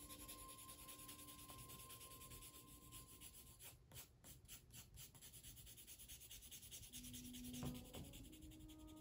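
Faint scratchy rubbing of a coloured pencil shading on drawing paper in short, repeated strokes.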